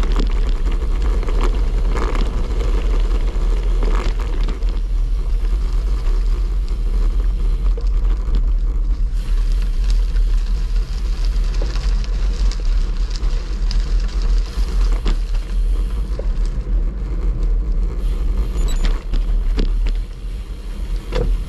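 Wind rumbling on a handlebar-mounted camera's microphone over the rolling noise of a road bike, with scattered short ticks of grit and jolts from a rough gravel track. The level dips a little near the end.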